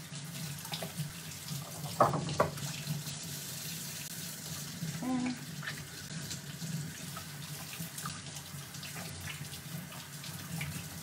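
Kitchen faucet running steadily into the sink as hands are washed under the stream, with a couple of sharp knocks about two seconds in.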